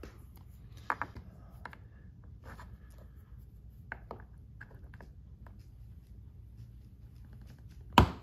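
Metal axle pin and replacement plastic wheel being worked by hand into a Pelican case's wheel bracket: light scraping with scattered small clicks, then one sharp click near the end.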